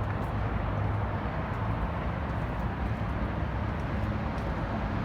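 Diesel truck engine running steadily: a constant low hum with an even haze of engine noise above it.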